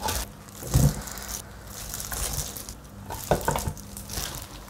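Hands mixing and handling seasoned napa cabbage kimchi: wet squishing and rustling, with soft knocks about a second in and again after about three seconds.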